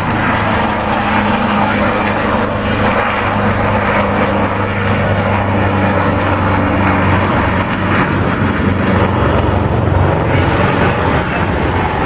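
Helicopter flying a display overhead: steady turbine and rotor noise with a low hum.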